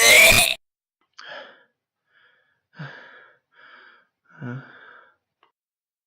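A cartoon boy's loud sneeze in the first half-second, followed by four short wheezing, gasping breaths spread over the next few seconds.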